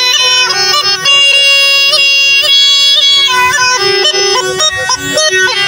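Snake charmer's been (pungi), a reed pipe playing a steady drone note under a shifting, ornamented melody.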